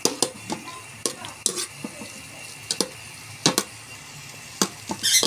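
Metal spoon stirring ground meat as it sautés in a metal pot: the spoon clinks and scrapes against the pot at uneven intervals over a faint sizzle.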